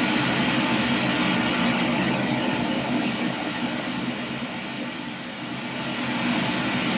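Pink noise from the Smaart Di signal generator playing through the sound system at about 87 dB SPL: an even, full-range rushing noise that dips slightly about five seconds in.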